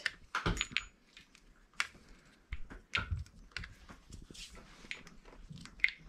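Allen key working the handlebar stem's side clamp bolts on a bicycle: a scattered run of light metal clicks and taps, roughly one every half second to second, as the key is seated in the bolt heads and turned to tighten them.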